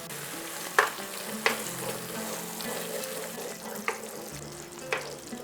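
Spice paste with turmeric and chilli powder sizzling in hot oil in a pan, being stirred with a spatula; a few sharp clicks where the spatula knocks against the pan.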